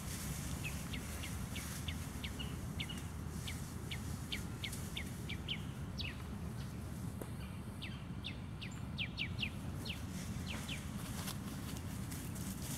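A bird chirping in a quick series of short, sharp chirps, pausing briefly midway, over a low steady rumble.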